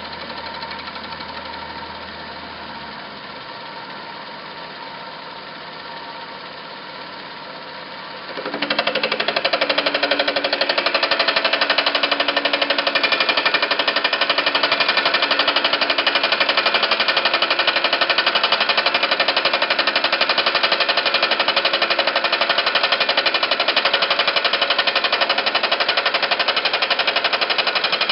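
Vertical milling machine's cutter milling steel pawls held on a magnetic chuck, taking a light 0.020-inch pass as the table is hand-fed slowly. Lighter running for the first eight seconds or so, then the cutter bites fully into the work and a much louder, fast, steady rattling cut sets in.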